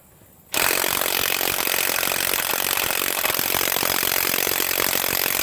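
HANS 1/2-inch cordless electric impact wrench (rated 530 Nm) hammering steadily on a car lug nut torqued to 100 ft-lb, starting about half a second in. The nut will not break loose, a sign that this wrench is short of real torque.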